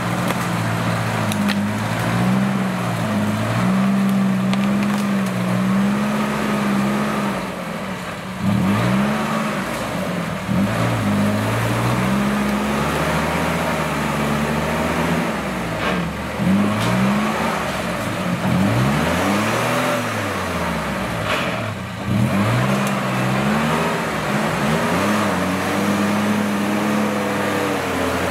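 An off-road 4x4's V6 engine running at a steady idle, then revved up and down again and again through the middle stretch before settling back to idle.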